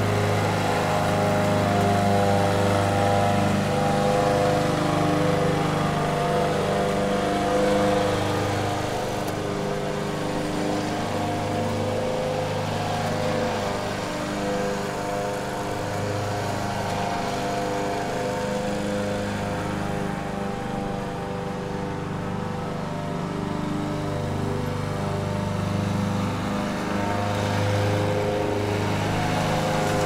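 Lawn mower running steadily while mowing grass, its motor hum wavering slightly in pitch and loudness.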